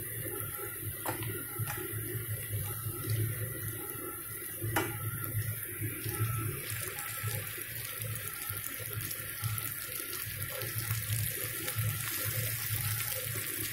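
Sliced okra and onions frying in hot mustard oil in a non-stick kadhai: a steady sizzle, with a few light knocks of okra pieces dropping into the pan in the first few seconds. The sizzle grows fuller about halfway through, and a plastic spatula stirs the okra near the end.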